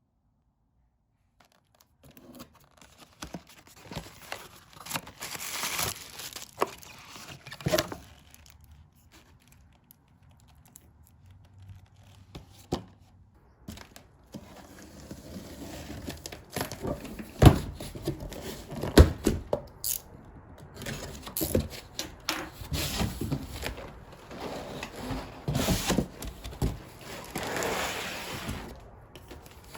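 Parcel packaging being opened by hand: wrapping tearing and crinkling in irregular rustles, with scattered sharp knocks of handling, starting about two seconds in.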